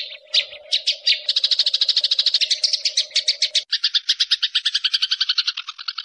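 Sparrows chattering: a few separate high chirps, then about a second in a fast, even run of about ten chirps a second. About two-thirds of the way through, the tone changes abruptly and a faint low hum underneath cuts out, as one recording gives way to another, and the rapid chatter carries on.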